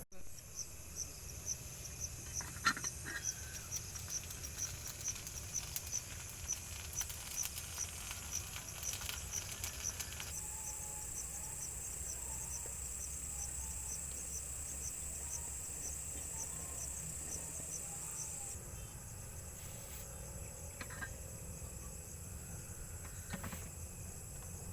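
Night insects: a cricket chirping in an even run of short high pulses, about three a second, over a steady high-pitched insect drone. The chirps fade after about ten seconds while the drone grows louder.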